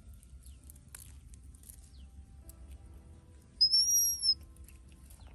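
A bird's single high whistled note, rising slightly then falling, just under a second long about midway through, over faint scattered clicks.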